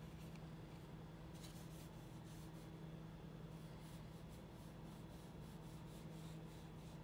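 Paintbrush stroking across a painting: faint, uneven rubbing strokes over a steady low hum.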